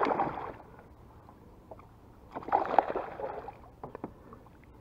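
A hooked peacock bass thrashing at the water's surface beside a kayak: two bursts of splashing, one at the start and one about two and a half seconds in.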